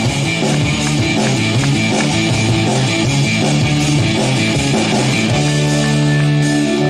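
Instrumental break in a trot song: guitar over held bass notes and a steady drum beat, with no singing.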